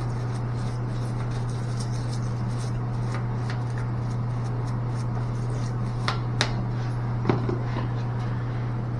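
A steady low hum runs throughout. A few light clicks and taps come about six to seven seconds in, the sound of small metal valve parts being handled during reassembly.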